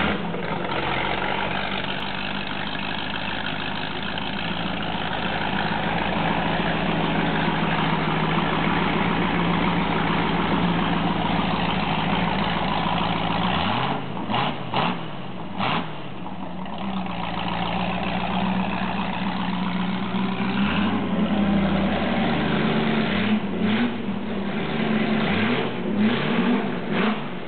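Ford 289 High Performance (K-code) V8 on an engine run stand, freshly started and running at a steady idle, then revved in a few quick throttle blips about halfway through and again several times near the end.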